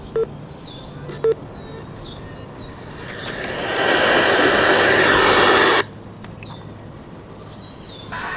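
A radio receiver gives three short electronic beeps, then a hiss swells up about three seconds in and cuts off abruptly near six seconds. Small bird chirps recur throughout.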